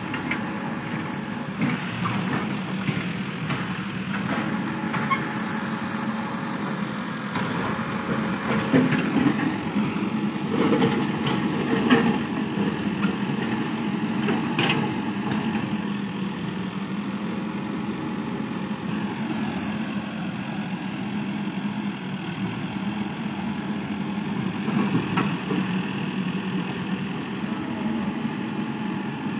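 Diesel engine of a JCB backhoe loader running steadily, with a few sharp knocks around the middle as its bucket works earth and rubble.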